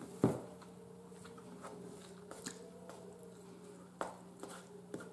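Quiet eating sounds: soft chewing, with a few short clicks of a fork against a plate, the loudest just after the start. A faint steady hum runs underneath.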